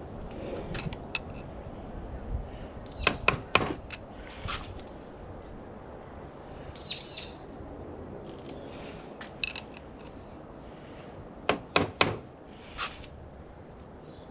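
Sharp clicks and taps of hand work on the outboard's lower unit, in two clusters, about three seconds in and again near twelve seconds, with a bird chirping now and then in the background.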